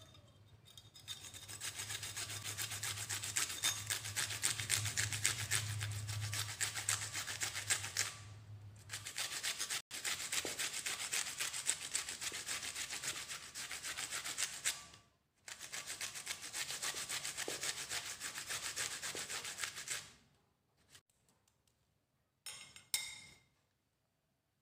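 Cucumber being grated on a small flat stainless-steel hand grater: fast, even rasping strokes, with two short breaks, stopping about twenty seconds in. A couple of short knocks follow near the end.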